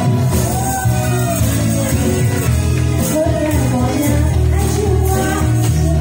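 Two women singing a Mandarin pop duet into microphones over an amplified backing track with a steady beat, with tambourines shaken along in rhythm.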